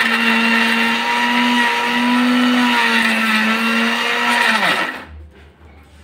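Electric mixer grinder running at full speed, grinding biscuits to powder in its steel jar, with a steady high motor whine. About four and a half seconds in it switches off and the motor winds down, its pitch falling until it stops.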